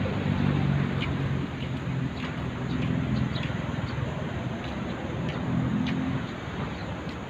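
A motor vehicle engine's low hum over steady street traffic noise; the hum is strongest in the first few seconds, eases off, and swells again briefly about six seconds in.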